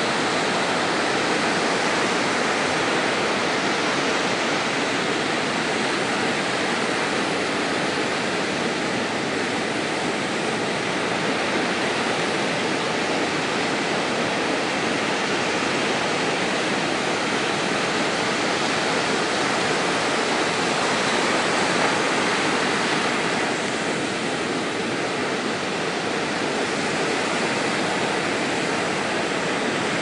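Surf washing onto a sandy beach: a steady, even rush of breaking waves with no clear pauses between them.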